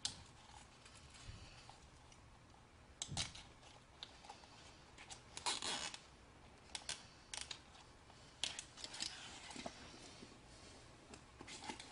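Faint handling noise of wire ties being threaded through the holes of a plastic kneepad frame and insert: scattered small clicks and scrapes, with a longer scrape about five and a half seconds in.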